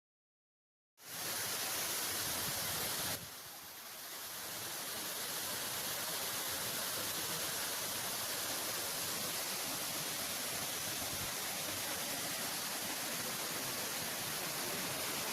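Steady rushing roar of a waterfall, starting about a second in and dipping briefly at a cut about three seconds in before settling back.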